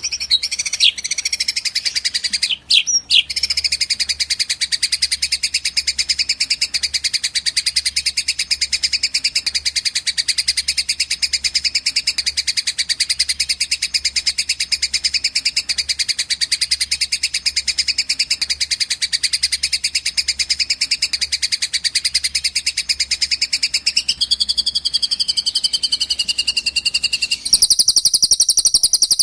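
Recorded songbird tutor track: one long, unbroken, very fast high trill, with two short breaks a few seconds in and a change of phrase near the end, where the recording cuts abruptly to a brighter, different birdsong track.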